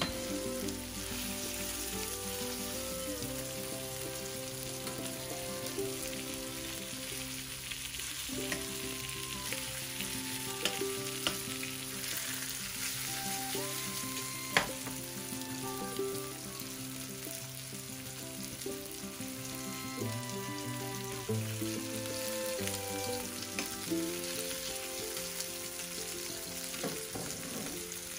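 Salmon fillets sizzling steadily in hot oil in a frying pan, with occasional sharp clicks of metal tongs against the pan as the fillets are turned and lifted out; the loudest click comes about halfway through.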